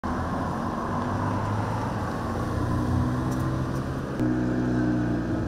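A car engine running close by on a street, with a steady low hum that steps up a little about four seconds in, as a car drives past.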